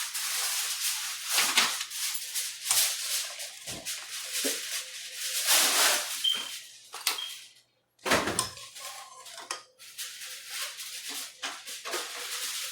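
Rustling, rattling and clattering of food and cookware being handled in a kitchen pot, with scattered knocks throughout and a short silent break a little past the middle.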